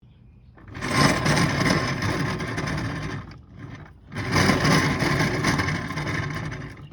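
Kymco GP125 125 cc scooter run up twice, each time a loud, rough mechanical noise that rises sharply and then eases off. The noise comes from the rear final-drive gearbox, whose bearing has broken up, with balls missing.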